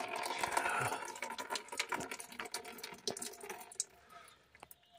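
Liquid pouring and splashing, with scattered drips and clicks, dying away about four seconds in.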